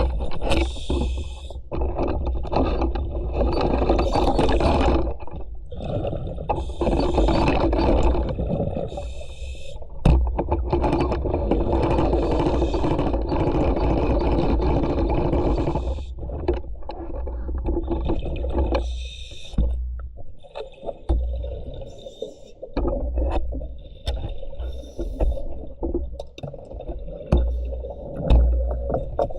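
Scuba diver's regulator breathing heard underwater: long stretches of bubbling exhalation, several in a row, with short pauses and small clicks between them.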